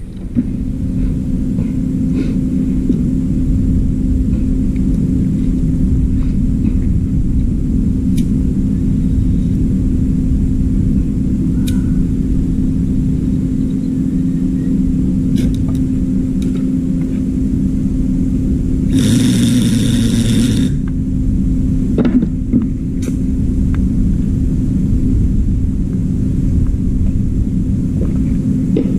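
Steady low rumble with a constant hum, and a short hiss about nineteen seconds in.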